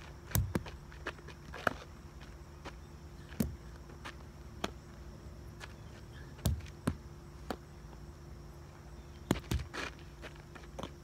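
Footsteps and irregular sharp knocks on asphalt, about a dozen spread unevenly, the loudest about half a second in and again past six seconds in, over a steady faint hum.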